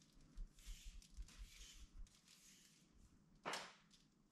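Near silence, with faint soft rustling as a bundle of electrical wire is handled and one short, slightly louder swish about three and a half seconds in.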